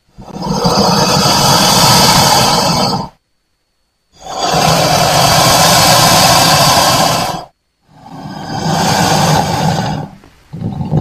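Crocodile growling in three long, loud calls separated by short pauses, the first two about three seconds each and the last one shorter.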